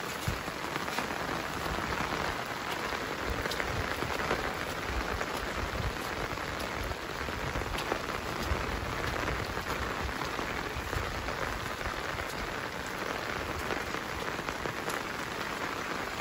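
Steady heavy rain falling on a flooded rice paddy: a dense, even hiss with scattered individual drop ticks.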